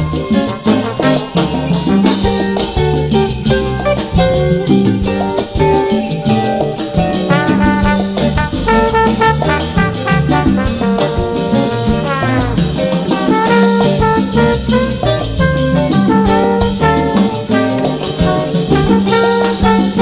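Upbeat instrumental background music, jazzy with a Latin feel, led by brass over a drum kit keeping a steady beat.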